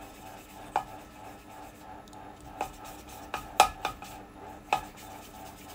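Valve being hand-lapped into its seat in an aluminium Toyota 3UZ V8 cylinder head, a suction-cup lapping stick spun back and forth between the palms: a rhythmic gritty rasp of very fine grinding paste between valve face and seat, broken by a few sharp clicks as the valve is tapped back onto the seat. The rasp is one the rebuilder judges pretty good, its note changing as the seat gets nice and smooth.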